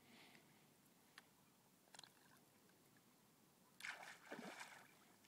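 Faint water splashing at the surface, with a couple of small clicks, and a louder splash-like rush about four seconds in.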